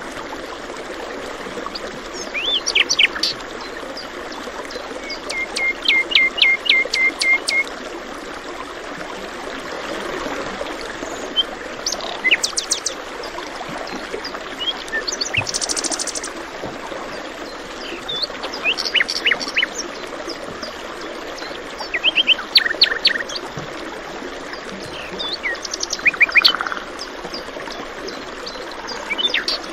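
Songbirds chirping and singing in short phrases every few seconds, one a quick run of about eight notes, over the steady rush of running water.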